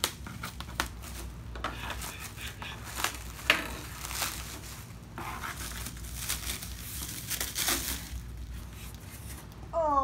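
Clear plastic stretch wrap being pulled off a flat cardboard package by hand, crinkling and crackling in irregular rustles with a few sharper crackles.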